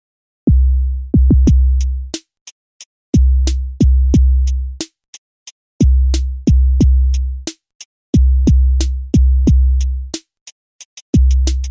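Background electronic music: a drum-machine beat of deep bass kicks in short repeating groups, with sharp hi-hat ticks joining about a second in.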